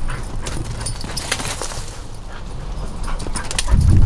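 A dog panting and whimpering, with scattered sharp clicks and a louder low rumble near the end.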